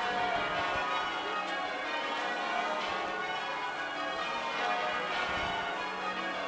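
Church bells change ringing: many bells struck one after another in an unbroken, overlapping peal at a steady level.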